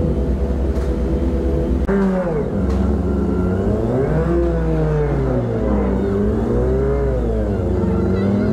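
Sport motorcycle engine idling steadily, then about two seconds in pulling away, its pitch rising and falling again and again with the throttle as it rides off at low speed.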